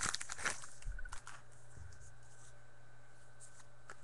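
Trading-card pack wrapper crinkling and cards being handled, loudest in the first half-second. After that, a few faint taps over a steady low hum.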